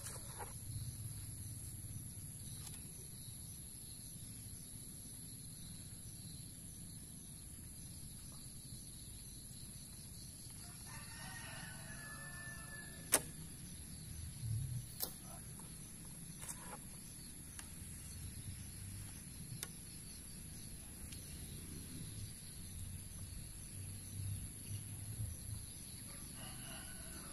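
A rooster crows about ten seconds in and again near the end. About thirteen seconds in comes a single sharp snap of a traditional bow's string being loosed, followed by a few fainter clicks.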